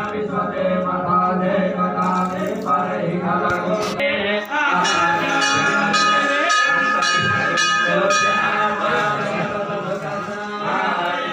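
Devotional chanting with background music, the voices holding some long, steady notes, most clearly in the middle.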